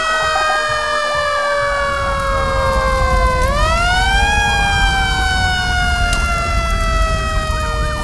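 A vehicle siren wailing, its pitch sliding slowly down, rising briefly about three and a half seconds in, then sliding down again, over a low rumble.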